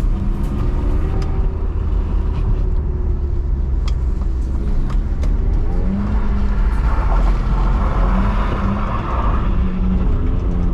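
BMW E46 320i's M54B22 2.2-litre straight-six running under heavy low rumble, its revs rising and holding as the car is driven, heard from inside the cabin. A rushing hiss swells in the middle, and there are a few sharp knocks about four and five seconds in.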